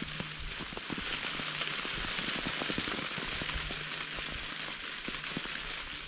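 Ripe mulberries and small sticks falling onto a cloth tarp as the mulberry tree is shaken, with the shaken leaves rustling: a dense, rain-like spatter of many small taps and a few soft thuds, loudest in the middle.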